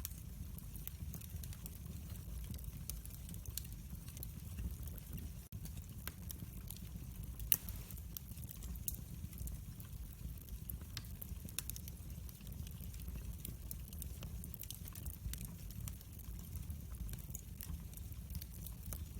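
Wood fire in a fireplace crackling: scattered small pops and snaps over a steady low rumble of the flames, with one louder pop about seven seconds in.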